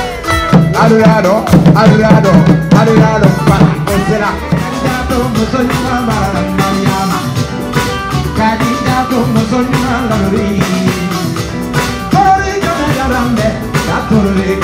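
Music with a singing voice over a steady drum beat.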